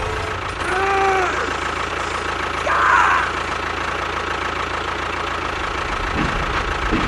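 Engine running steadily at idle. A short pitched sound rises and falls about a second in, and a brief chirp comes near three seconds.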